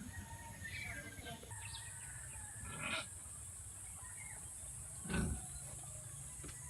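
Faint, scattered farm-animal calls: a few short cries, the clearest about three and five seconds in, over a steady high hiss.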